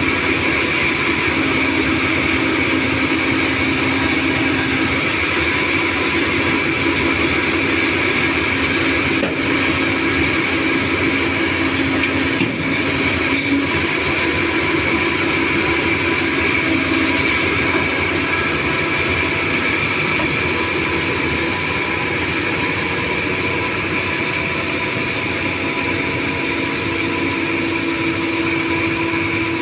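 Doosan 225 excavator running steadily while loading: diesel engine and hydraulics with a constant high whine over the engine, and a few light knocks about halfway through.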